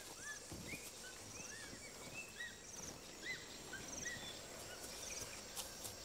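Faint tropical rainforest ambience: scattered short chirping calls, a short buzzy insect trill repeating at regular intervals, and a steady high insect tone over a low hiss.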